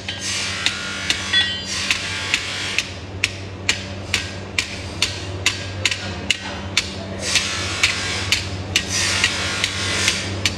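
Hand hammer striking a red-hot steel knife blade on an anvil during forging: a steady run of sharp metal blows, about two to three a second, over a steady low hum.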